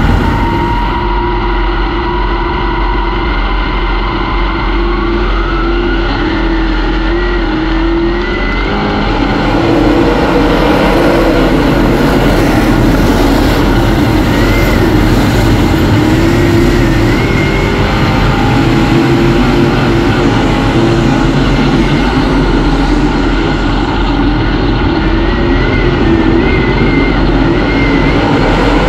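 A field of dirt-track modified race cars with engines running hard. The engine note climbs and the sound grows louder about nine seconds in as the cars get up to race speed, then stays high, with engines rising and falling as they pass.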